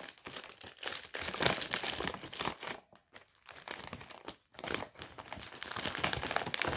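Plastic bags crinkling and rustling as a clear bag of white filling is pushed back into a larger plastic kit pouch, in irregular bursts with two short pauses near the middle.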